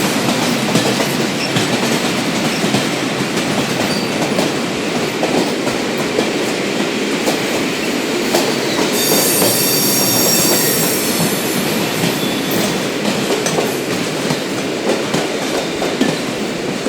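Train running on rails: a continuous rumble with repeated wheel clicks over the rail joints, and a high metallic wheel squeal for a couple of seconds about nine seconds in.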